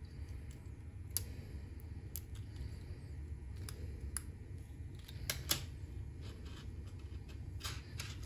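Small plastic clicks and taps from handling an N scale model freight car's plastic underframe, metal weight and trucks, a scattered few, with the loudest pair about five seconds in, over a steady low hum.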